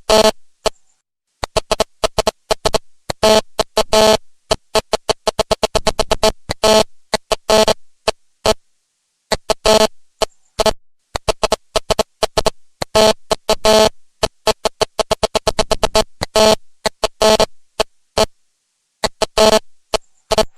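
Fax machine printing: rapid runs of ticking steps with a buzzing tone, starting and stopping in short bursts with brief pauses between.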